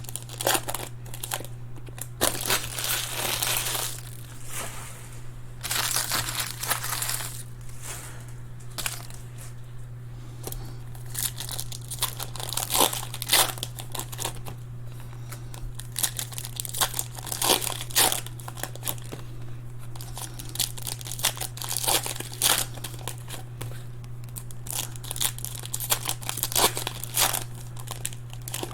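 Plastic and foil trading-card wrappers crinkling and tearing in irregular handling sounds as card packs are unwrapped. A steady low hum runs underneath.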